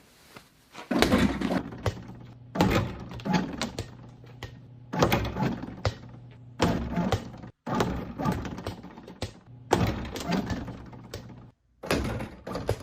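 Basketball shots hitting a robotic backboard and rim: a series of hollow thuds and knocks every second or two, the ball bouncing between them, over a steady low hum.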